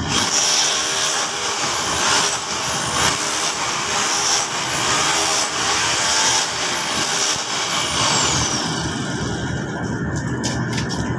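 Loud continuous machine noise, pulsing a little over once a second, with short falling high whines; the high part of the noise thins out about nine seconds in.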